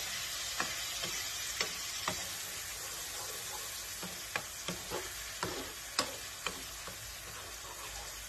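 Chili-tomato sauce for koshari (daqqa al-shatta) sizzling in a pan on the hob, a steady hiss, while a spoon stirs it and knocks against the pan now and then. The taps thin out near the end.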